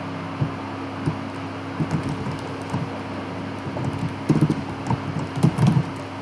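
Keystrokes on a computer keyboard: scattered clicks that come in quick flurries about four seconds in and again around five and a half seconds in, over a steady low hum.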